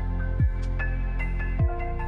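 Calm new-age style background music: held synth chords, with a deep thump that drops in pitch twice.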